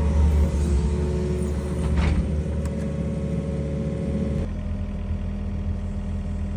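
Excavator diesel engine running steadily while the machine works, with a brief knock about two seconds in; the engine note changes abruptly about four and a half seconds in.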